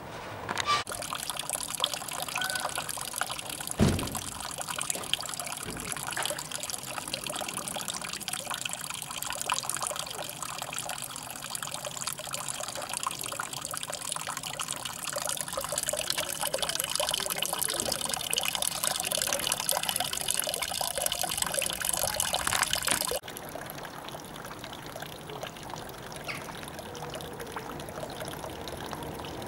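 Water running from the spout of a stone wall fountain, a steady splashing and trickling hiss. It drops away abruptly about 23 seconds in, leaving a quieter hiss, with one low thump about four seconds in.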